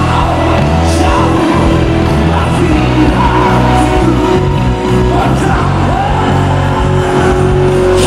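Live rock band playing, with a male lead vocalist singing into a microphone over drums, bass and electric guitar.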